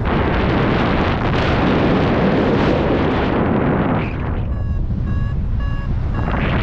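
Wind rushing over the microphone in paragliding flight, with a variometer beeping in short, even pulses, about three a second, for a couple of seconds past the middle: its climb tone, the sign of rising air.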